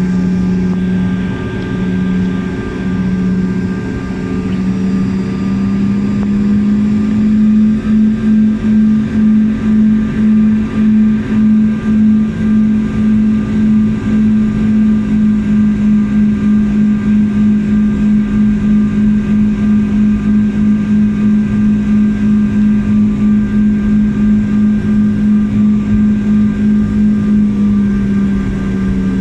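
Airliner engines heard from inside the passenger cabin as a loud, steady low hum. A few seconds in, the hum rises slightly and begins to throb in a regular beat, about two to three pulses a second, which quickens. It eases back to a smooth hum near the end.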